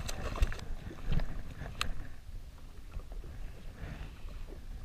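Water lapping against the hull of a drifting jet ski with a low rumble underneath, and a few sharp clicks and knocks from handling the fishing rod and a freshly landed fish, the sharpest about two seconds in.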